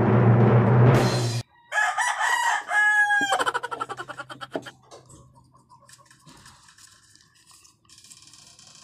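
A rooster crowing once, about two seconds in, its call ending in a falling glide. Before it, loud music with a steady low hum stops abruptly.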